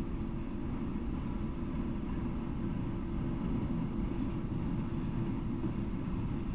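Freight train of autorack cars rolling past at steady speed: a continuous low rumble of wheels on rail.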